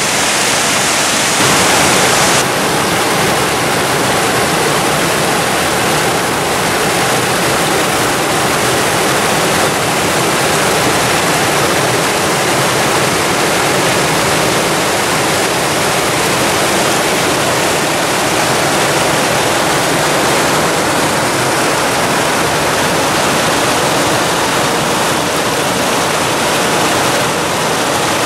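Waterfall pouring into its plunge pool: a steady, loud rush of falling water, briefly louder about two seconds in.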